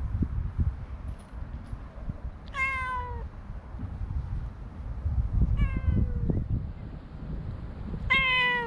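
Stray cat meowing three times, each meow short and falling slightly in pitch, the last one the loudest.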